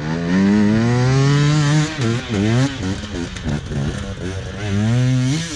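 Dirt bike engine revving: its pitch climbs steadily for about two seconds, then goes up and down in a few quick blips, and climbs again near the end.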